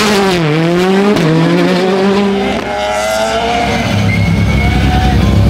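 Rally car engine revving hard as the car accelerates away from the hillclimb start line: its pitch climbs, drops at a gear change about a second in, climbs again, then fades into the distance. From about four seconds in, the next car's engine runs steadily at low revs, close and louder.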